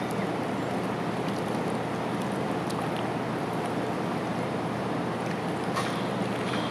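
A steady rushing background noise, with a few faint clicks and splashes from young mallards dabbling with their bills in shallow water at the pond's edge.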